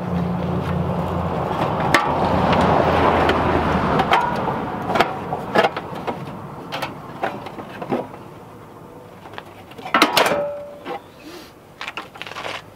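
Plastic shroud of a truck's electric condenser fan clicking, knocking and scraping against the surrounding metal as it is wiggled out by hand, with one loud knock about ten seconds in. A steady low hum runs underneath and stops about four seconds in.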